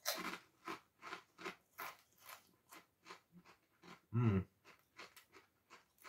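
A person chewing crunchy ridged potato crisps (Smith's Double Crunch), short dry crackles at about two and a half a second, with a brief low thump about four seconds in.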